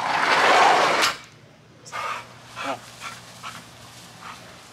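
A loud rushing noise lasts about a second and ends in a knock. After it, a dog whimpers in a few short, pitch-bending cries.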